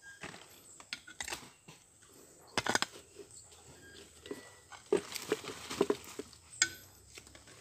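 Digging into soil after a metal-detector target: a hand tool scraping and knocking on earth and stones in short bursts, with a few sharp metallic clinks.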